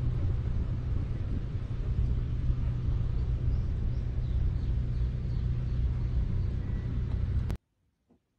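Wind rumbling on the microphone outdoors, a steady low rumble that cuts off suddenly near the end.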